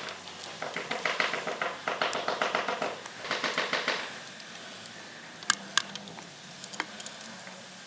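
Rapid mechanical rattling in several short bursts, then a few separate sharp clicks near the end.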